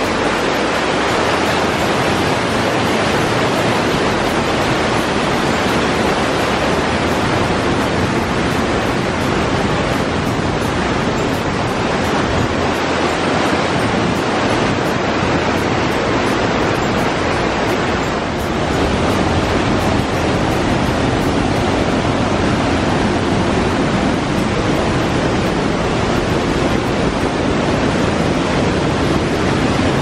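Mountain brook rushing down cascades and waterfalls through a narrow rock gorge: a loud, steady wash of white water.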